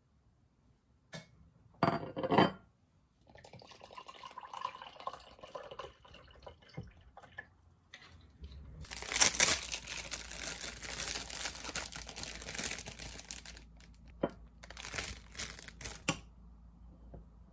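A ceramic mug and plate are set down on a desk with a sharp clinking clatter. Then wrapping crinkles loudly for several seconds as the bread is unwrapped, and a few light knocks follow as the bread goes onto the plate.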